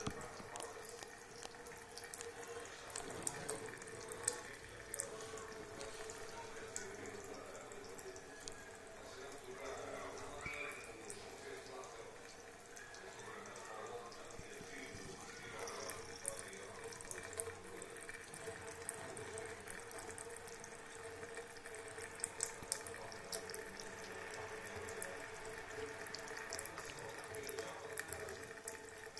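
Bathroom tap running a thin stream into a sink, with small irregular splashes and ticks as a cat laps at the stream.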